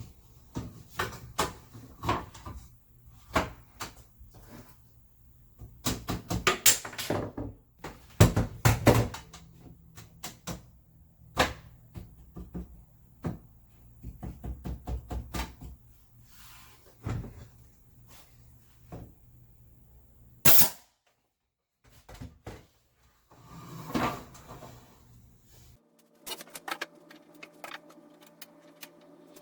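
A nail gun firing into plywood French cleats, with knocks from the wood and spacers being handled and set against the wall, in a string of sharp, separate hits of varying loudness. A faint steady hum comes in near the end.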